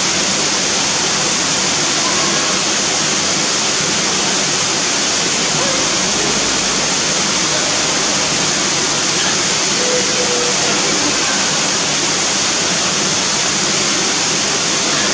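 Steady rush of falling water, a loud even hiss with no breaks.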